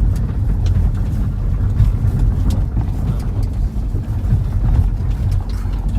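Steady low rumble of a van riding along the road, heard from inside, with a few faint ticks.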